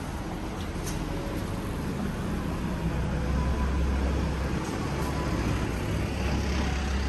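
Road traffic passing on a city street: steady road noise with a low engine rumble that grows louder about three seconds in as vehicles go by.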